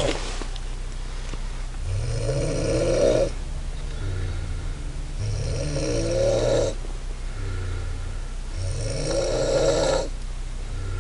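A woman snoring in deep sleep: three rough snores on the in-breath, about every three and a half seconds, with quieter breathing out between them.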